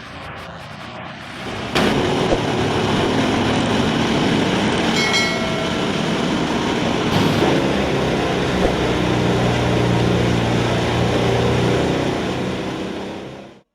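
Vermeer WC2300XL wood chipper, its engine running under load as timber is fed in. A dense chipping noise over a steady engine drone jumps up sharply about two seconds in, stays loud, and eases off near the end.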